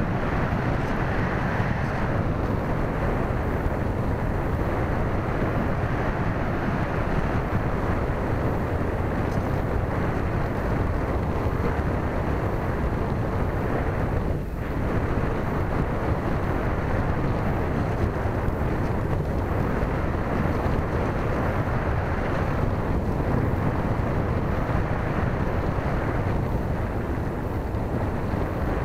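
Steady rush of airflow over the microphone of a camera riding on a Multiplex Easystar RC plane in flight, with a brief dip in loudness about halfway through.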